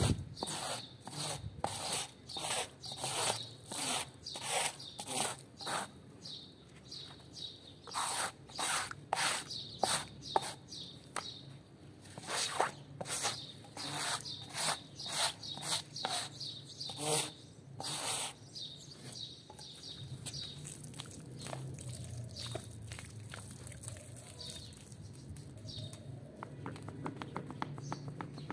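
Floor squeegee scraping dirty water across a wet tile floor in quick strokes, about two a second. The strokes stop about two-thirds of the way through, leaving a softer steady wash of sound.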